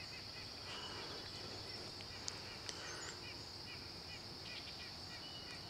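Faint rural evening ambience: a steady high-pitched insect drone with short, repeated bird chirps over it, and two brief ticks near the middle.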